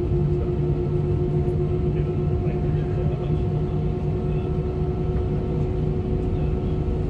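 Cabin noise of an Airbus A320-232 taxiing, heard from a window seat over the wing: its IAE V2500 turbofans running at taxi power give a steady low rumble with a steady hum over it.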